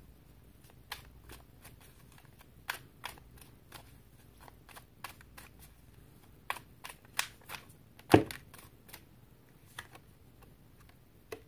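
Oracle cards being handled and shuffled: scattered light clicks and snaps of card stock, with one louder knock about eight seconds in.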